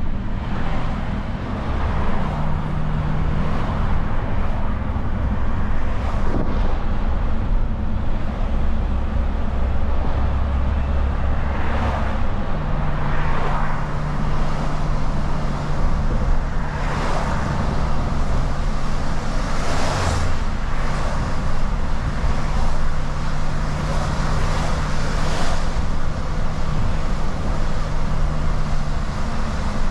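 Renault refuse truck's diesel engine running while driving, heard from inside the cab, with steady tyre noise on a wet road; the engine note shifts about twelve seconds in. Several oncoming vehicles swish past on the wet road in the second half.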